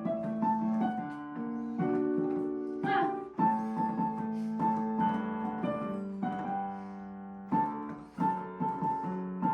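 Background piano music: sustained chords with a simple melody over them, new notes struck every second or so.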